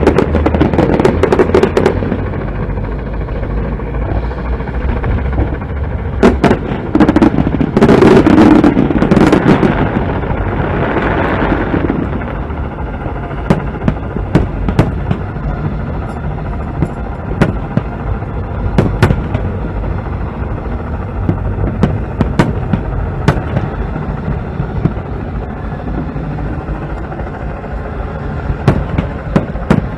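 Aerial fireworks bursting, a series of sharp bangs with a dense run of rapid bangs about six to nine seconds in, then scattered single bangs, over a steady low rumble.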